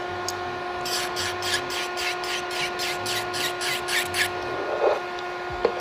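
Electric nail file running with a ceramic bit, a steady whine, while the bit rasps over an acrylic-and-gel nail in quick strokes, about four a second, that stop after about four seconds: filing away bulk from the nail.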